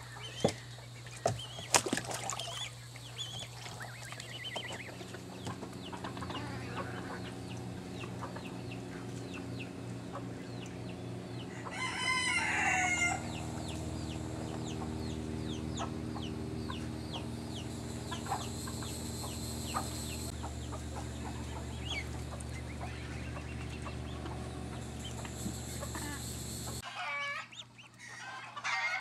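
Backyard chickens clucking, with a rooster crowing loudly for about a second around twelve seconds in, over a steady low hum that stops near the end.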